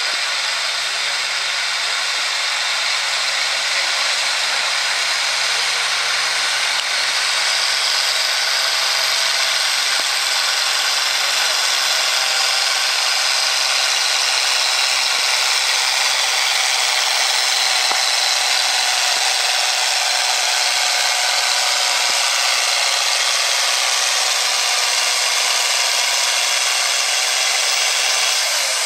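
A turbocharged International Harvester farm tractor's diesel engine runs hard under full load, pulling a weight-transfer sled through the dirt. The mechanical din stays loud and steady throughout.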